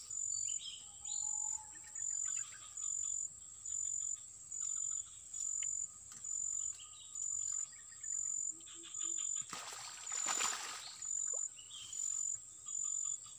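Insect chirping in a steady high-pitched pulse about once a second, with a few short bird chirps. About ten seconds in, a loud rush of noise lasting a second or so rises over it.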